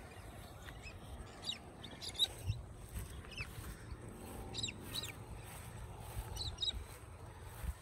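Birds chirping: scattered short, high notes that sweep quickly down or up, over a low steady rumble with a few soft bumps, the sharpest about two seconds in.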